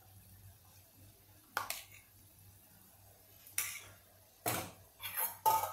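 Steel spoon knocking and scraping against a stainless-steel bowl while chutney is served out. There are a few separate clinks, the loudest near the end with a short ring.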